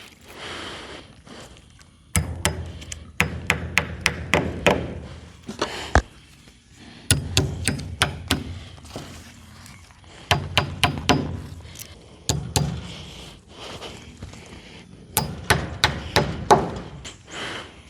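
Hammer tacking small nails, in four bursts of quick strikes with short pauses between.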